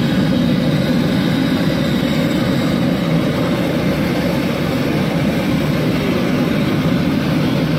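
A steady, loud, low mechanical rumble that runs unchanged throughout.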